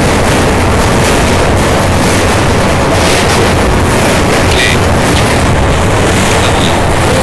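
Loud, steady rushing noise at every pitch with a low rumble underneath, like wind or a fan on the microphone, covering the recording.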